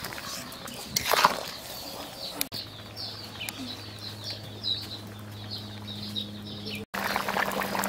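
A steel ladle scrapes and knocks in a metal cooking pot a couple of times. Then small birds chirp repeatedly over a steady low hum.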